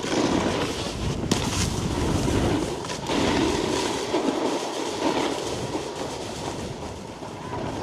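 Snowboard base and edges scraping and chattering over hard-packed snow, a rough continuous rumble that swells and eases with each turn, with a few sharp knocks along the way.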